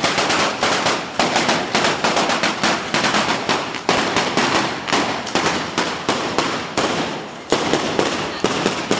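A traca, a long string of firecrackers set off in sequence, crackling as a rapid, continuous run of sharp bangs, several a second.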